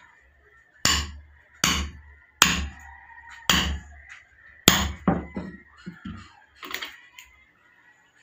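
Club hammer striking a steel tool set on a thick slab of tyre rubber, cutting out a bushing: five heavy metallic blows about a second apart, then a quicker run of lighter taps.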